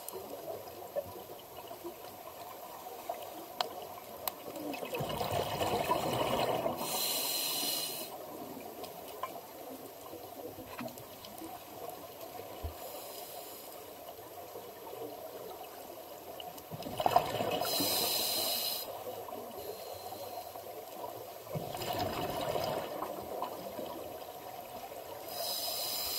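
Scuba diver breathing underwater through a regulator. Exhaled air leaves in three bursts of rumbling bubbles, and three sharper, higher hisses of inhalation come through the demand valve, a breath roughly every ten seconds.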